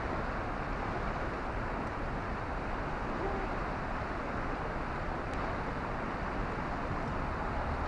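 Steady rushing noise of fast-running water, a strong outflow at a lake's edge, with no change in level.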